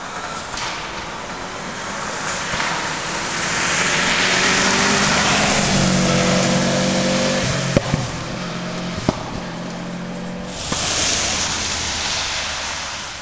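Subaru Impreza rally car approaching flat out on a gravel stage and passing close. The engine and tyre noise builds, then the engine note holds and shifts in pitch through gear changes, with two sharp pops about two-thirds of the way through. A fresh burst of engine and gravel noise comes near the end.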